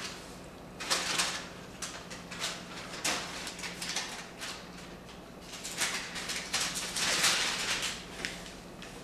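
Rustling and scraping of paper puppets being handled and swapped behind a cardboard puppet stage: several short rustles, then a longer spell of rustling about six to eight seconds in.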